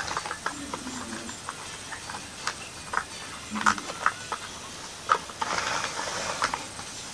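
Small plastic toy figures and a plastic toy car being handled: scattered clicks and taps, then about a second of scraping from about five and a half seconds in as the car is pushed along.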